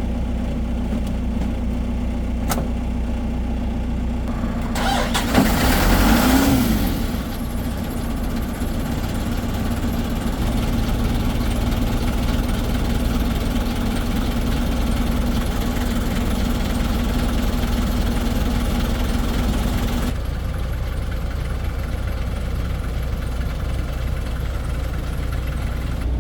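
Heavy diesel engine of construction machinery running steadily, with a louder rush of noise about five seconds in that lasts a couple of seconds. A steady hum over the engine stops about twenty seconds in.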